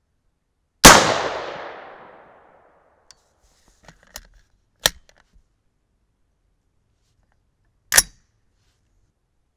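An unsuppressed .223 AR-15 rifle fires a single shot about a second in, its report echoing and dying away over about a second and a half. A few light clicks follow, then a short sharp crack near the end.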